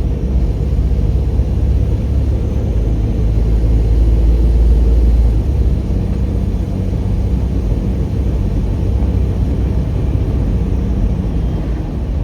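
Car driving along the road, heard from inside the cabin: a steady low rumble of engine and tyre noise that swells slightly about four to five seconds in.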